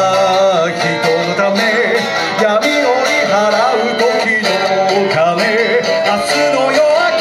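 A man singing into a microphone with electric guitar accompaniment, amplified through PA speakers; the voice wavers in pitch over steady guitar chords.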